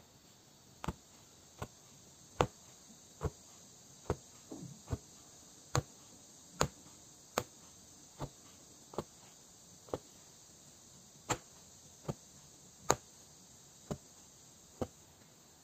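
Punch needle stabbing yarn through fabric stretched tight in an embroidery hoop, giving a short click with each punch, about one a second at an uneven pace.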